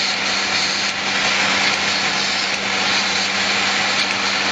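Automatic roller-clamp assembly machine running: a steady mechanical whir over a constant low hum, with a couple of faint ticks.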